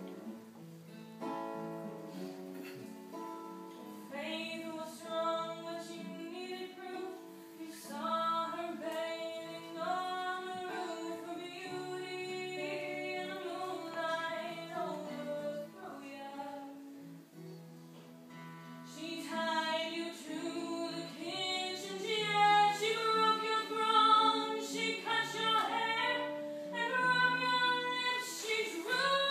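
A woman singing live to acoustic guitar. The guitar plays alone for the first few seconds, the voice comes in about four seconds in, drops away briefly past the middle, then returns louder for the second half.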